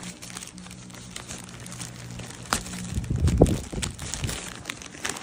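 Clear plastic wrapping of a pack of parchment liners crinkling and crackling as it is handled, with a louder low rumble of handling about three seconds in.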